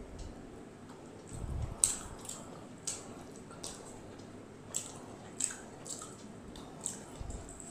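Close, wet chewing and mouth smacking of a person eating rice and chicken by hand, picked up by a clip-on microphone: sharp, irregular smacking clicks about once a second.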